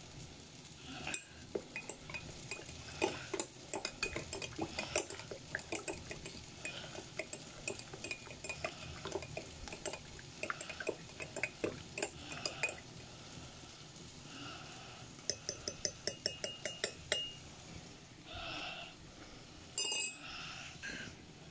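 Metal teaspoon stirring tea in a ceramic mug, clinking against the sides over and over, with a fast run of clinks about two-thirds of the way in. A louder knock comes near the end.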